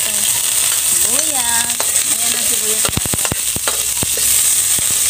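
Garlic and onion sizzling in hot oil in a wok, a steady hiss. A metal turner stirs and scrapes against the pan, with a quick run of sharp taps about three seconds in.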